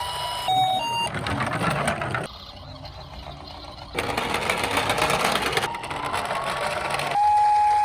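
Toy minicars rolling down a slope, their small wheels making a fast rattle in two runs of about a second and a half each. A steady electronic siren tone starts near the end.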